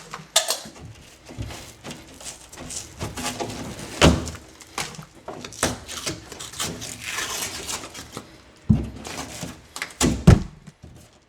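Drywall being cut and worked loose with a hand saw: irregular knocks and thumps with stretches of rough scraping. The loudest knocks come about nine and ten seconds in.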